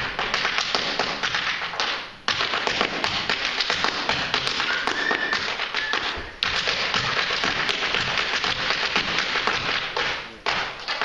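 Irish dance hard shoes rapidly tapping and stamping on a wooden stage floor in quick rhythmic beats, with no music. The beats break off briefly three times: about two seconds in, about six seconds in, and near the end.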